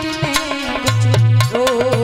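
Live ghazal music: a wavering melody over regular hand-drum strokes, with a deep drum tone coming in about a second in.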